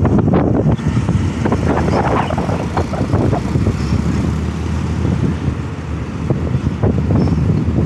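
Wind buffeting the microphone over road and tyre noise while riding an electric motorcycle. The noise is steady and heavy in the low range, crackling irregularly in the first few seconds.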